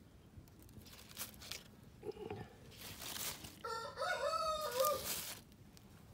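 A rooster crowing once, a wavering call of about a second and a half near the middle, with a few soft rustles before it.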